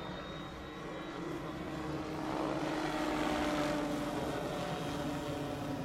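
Vario AS350 Ecureuil scale electric RC helicopter flying overhead, its rotors and drive making a steady whine that swells to a peak about halfway through and then eases a little as it passes.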